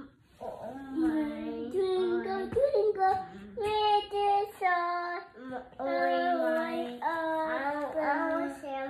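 A toddler singing a tune in a series of held notes that step up and down, in short phrases with brief breaks between them.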